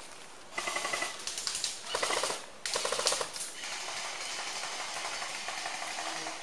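Airsoft guns firing three rapid bursts of full-auto fire in quick succession.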